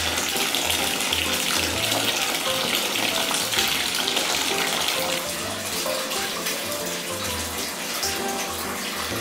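Bath tap running into a partly filled bathtub: a steady rush of water splashing into the standing water.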